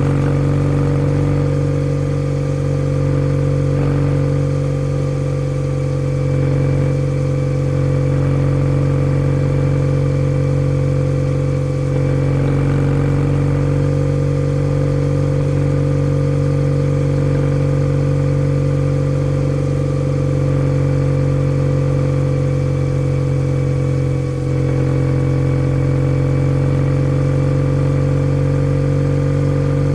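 Kawasaki W650's air-cooled parallel-twin engine through a POSH W1 aftermarket full exhaust, running at a steady cruising speed with an even note that hardly changes pitch, with a brief dip about two-thirds through.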